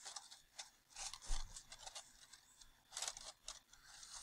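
Pencil scratching on paper in short, faint strokes as it traces around a curved paper piece, with a soft thump about a second in.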